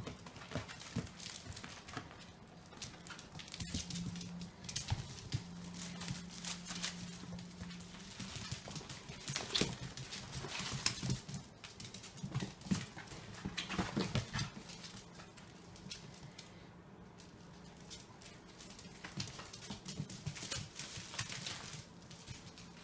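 Two puppies playing on a tile floor: irregular claw clicks and scrabbling paws, with scuffling as they tug at stuffed toys, busiest in the middle.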